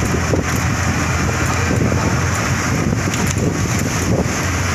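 Steady low rumble and road noise of a moving bus, with wind rushing over the microphone from an open window.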